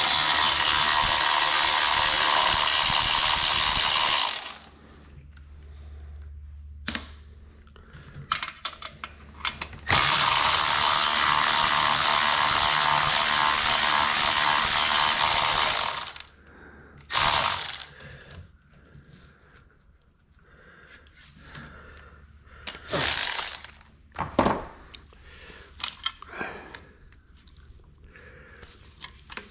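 A handheld power tool running steadily in two long spells of about four and six seconds, unbolting an engine bracket, followed by a few short bursts and scattered clicks and clinks of tools and parts being handled.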